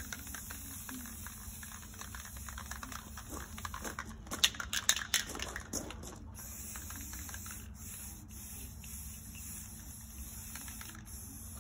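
Aerosol spray paint can used on a mower hood: a cluster of short hissing bursts about four to six seconds in, over a steady low background hum.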